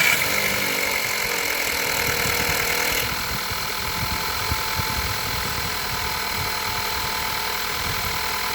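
A VW Golf 6 1.2 TSI four-cylinder turbo petrol engine runs at idle just after a cold start, with a rattle taken for a worn or slack timing chain. The sound gets a little quieter about three seconds in.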